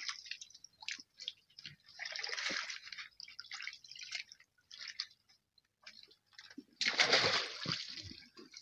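Water splashing and dripping in a shallow pond, with a larger splash about two seconds in and a louder one about seven seconds in, and short drips and trickles in between.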